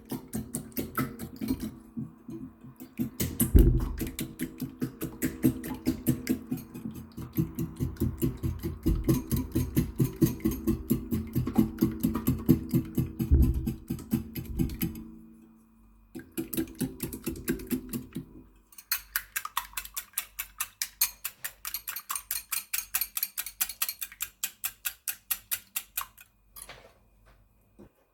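Eggs being beaten with a fork in a bowl: fast, rhythmic clicking of about five strokes a second, over background music that stops about two thirds of the way in.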